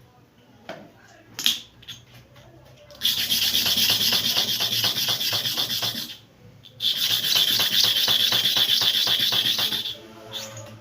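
A STAREX hair-clipper blade being ground to and fro against a sharpening surface: two long, even, gritty rubbing strokes of about three seconds each, with a short pause between them. A couple of light clicks come before them.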